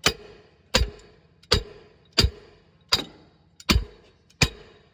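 Hammer striking metal on a coach bus's air brake assembly: seven sharp blows about three-quarters of a second apart, each with a short metallic ring.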